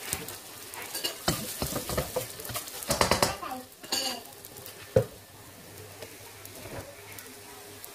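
Plastic spatula scraping and turning fried rice in a nonstick wok, with a light sizzle from the pan. The scrapes and knocks are busiest around three seconds in, a single sharp knock follows about two seconds later, then only a soft sizzle remains.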